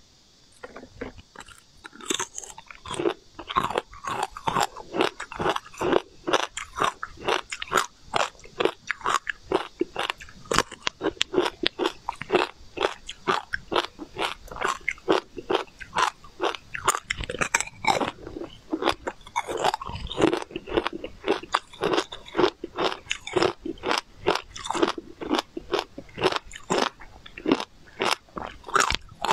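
Slab of frozen sweet green ice being bitten and crunched between the teeth, a rapid run of sharp cracks and crunches with chewing. The crunching starts about two seconds in.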